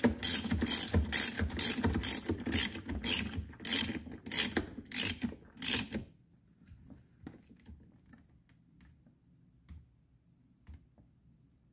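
Ratchet wrench clicking as it tightens the steering-wheel retaining bolt on the steering column, in regular strokes about two a second. The clicking stops about six seconds in, leaving only a few faint ticks.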